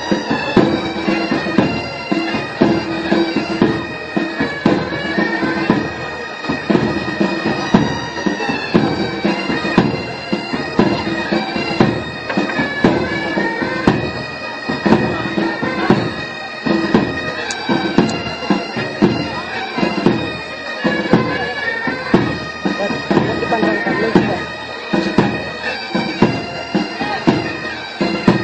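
Pipe band playing: bagpipes sounding a tune over a steady drone, with drum beats throughout.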